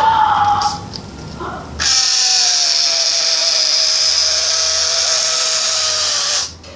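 Air squealing out of an inflated balloon through its neck, stretched tight between the fingers: a brief squeak at the very start, then a loud, steady high-pitched screech from about two seconds in that sinks slightly in pitch and cuts off near the end.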